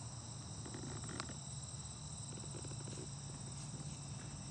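Insects trilling steadily in a grassy summer field, a high, finely pulsing chorus, with a few faint taps and rustles about a second in.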